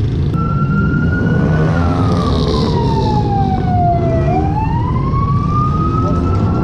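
A siren wailing slowly: a held tone that falls over about two and a half seconds, then climbs back and holds. Underneath, motorcycle engines run steadily as the group rides.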